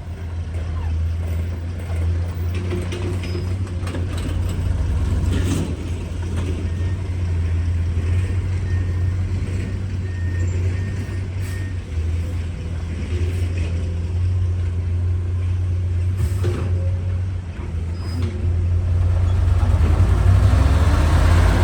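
Diesel engine of a Komatsu PC210 hydraulic excavator running steadily while it digs, with a few sharp knocks. It gets louder near the end.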